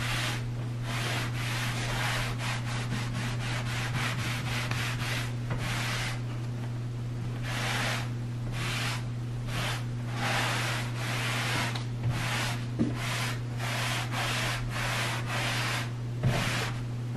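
A t-shirt rag rubbing back and forth over a sanded bare-wood tabletop, wiping back a wet whitewash of water and white paint. A steady run of rubbing strokes, roughly two a second.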